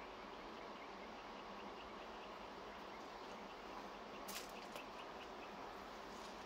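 Faint insect chirping, short notes repeating about three times a second, over a steady background hiss, with a few brief rustles about four seconds in.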